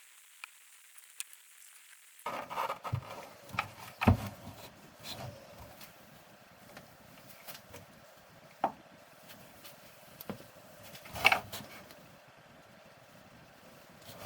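Irregular knocks, taps and clatter of hand work on the box and tools, loudest about four and eleven seconds in.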